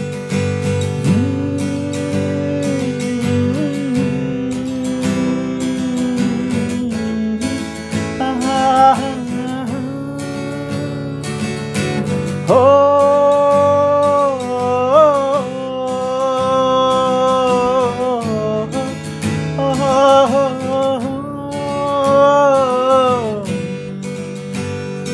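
Acoustic guitar strummed in a steady chord pattern, with a man humming a wordless melody over it in long, wavering held notes.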